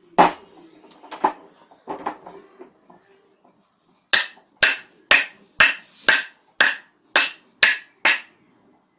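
A hammer tapping a new ball bearing into the bearing seat of a ceiling fan's motor: a few softer knocks, then eight sharp, evenly spaced blows about two a second.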